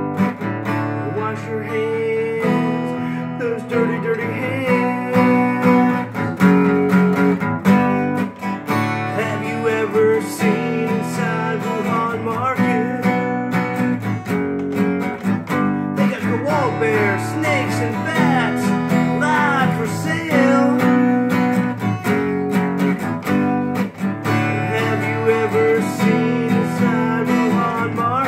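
Steel-string acoustic guitar strummed with chords changing in a steady rhythm, an instrumental break in a song.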